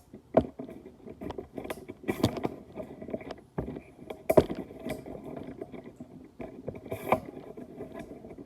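Irregular knocks and clatter of small objects being handled and set down, with a few louder knocks.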